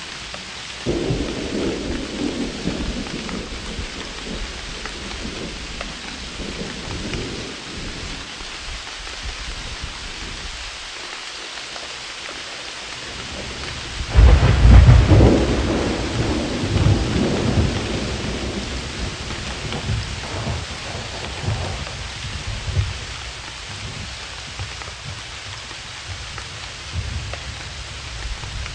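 Steady rain with rolls of thunder: a rumble begins about a second in, the loudest and deepest thunderclap comes about halfway through, and weaker rumbles follow.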